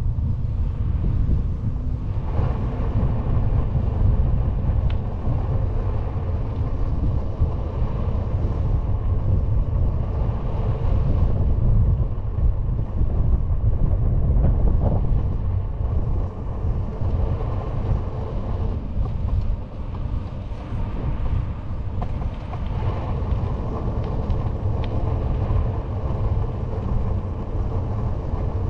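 Wind noise on the microphone of a camera mounted on a moving bicycle riding along an asphalt road, a steady low rumble with the even hum of its knobby mountain-bike tyre rolling on the tarmac.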